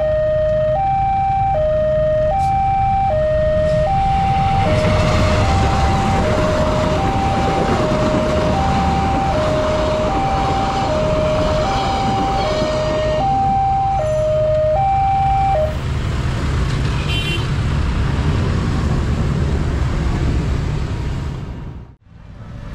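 Railway level-crossing warning siren alternating between two steady tones, E-flat and G, switching about every three-quarters of a second, then cutting off abruptly about two-thirds of the way through. A heavy rumble swells and fades during the middle of the siren, typical of a train passing over the crossing.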